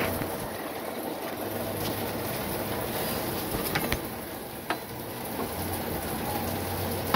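Steady rain falling around the van, with a few light clicks and knocks about the middle as the replacement rear shock is worked up into its mount.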